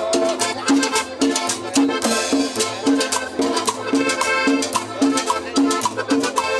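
Background salsa music with a steady, evenly repeating beat.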